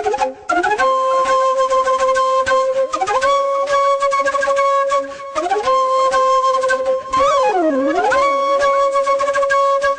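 Bamboo flute (bansuri) playing a slow devotional melody: long held notes joined by smooth slides, with a bent, dipping phrase near the end.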